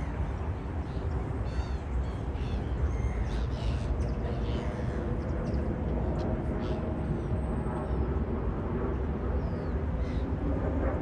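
A flock of gulls calling: short harsh cries, several between about two and five seconds in and a few more later, over a steady low rumble.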